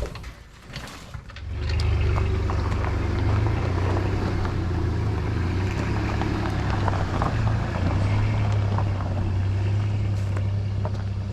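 Car engine starting about a second and a half in, then running steadily.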